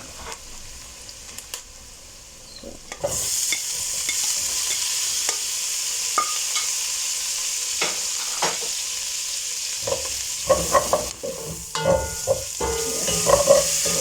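Meat going into a hot pan of butter and onions: the pan jumps into loud, steady sizzling about three seconds in. A spoon stirs and scrapes through it, with a run of knocks against the pan near the end.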